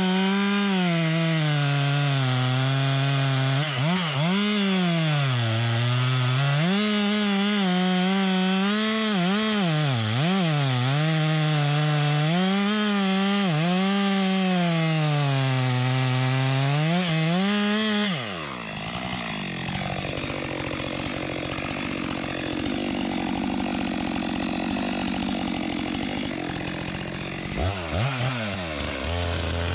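Two-stroke chainsaw cutting timber, its engine pitch rising and dipping as the chain loads up in the wood. About 18 seconds in the throttle is let off and the engine drops to a low idle, then it revs up again near the end.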